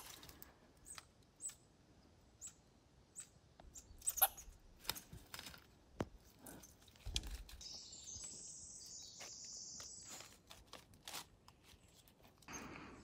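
Faint woodland sounds: scattered small clicks and crackles with a few high chirps, and a brief high, hissing trill about eight seconds in.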